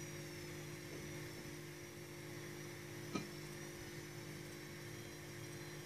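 Steady low electrical hum with a faint high whine above it, and a single small click about three seconds in.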